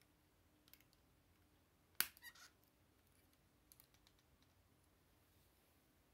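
Plastic Lego bricks clicking as the pieces of a Lego elephant model are handled and pressed together: a few faint clicks, one sharp click about two seconds in followed quickly by two smaller ones, then a few more faint clicks.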